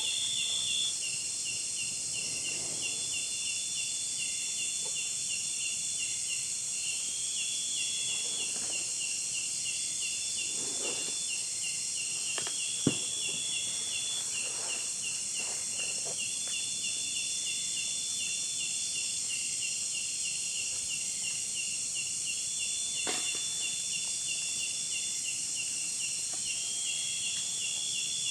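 Insect chorus: a steady high buzzing hiss, with a rapid pulsing call that repeats in phrases every two to three seconds. There are faint soft rustles and a single sharp click about halfway through.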